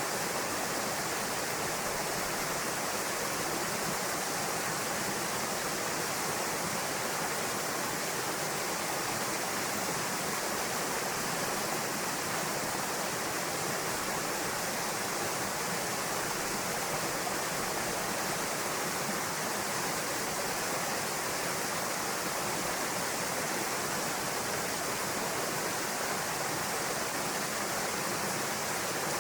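Small waterfall pouring steadily into a pool: a constant, even rush of falling water.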